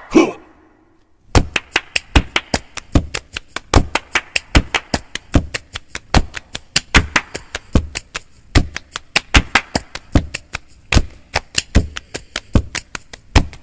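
Typing sound effect: a fast run of sharp key clicks, several a second, starting about a second in. It is preceded by a brief falling swoosh and a short pause.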